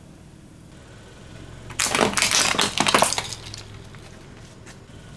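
Car tyre rolling over brittle objects and crushing them: a burst of crackling and cracking starts about two seconds in and lasts a little over a second, over a low steady hum from the car.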